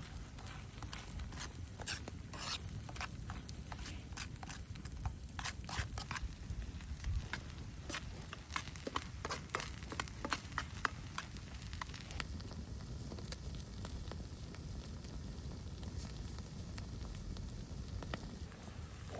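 Wood fire crackling with irregular sharp pops over a steady low rumble. The pops thin out about two-thirds of the way through, leaving mostly the rumble.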